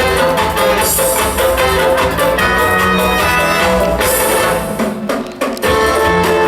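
Instrumental music with drums and percussion under sustained melodic notes, with a bright crash about a second in and again about four seconds in, and a brief drop in volume a little past five seconds.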